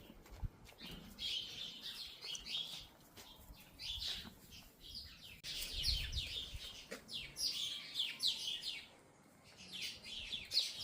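Songbirds chirping and trilling at dawn, many quick high notes in overlapping bursts, with a brief lull shortly before the end.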